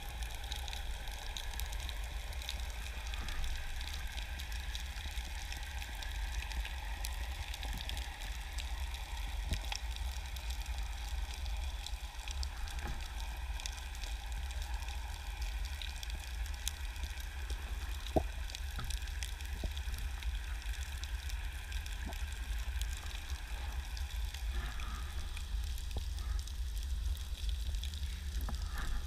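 Underwater ambience: a steady low rumble of moving water with constant fine crackling and scattered sharper clicks, one louder click about eighteen seconds in.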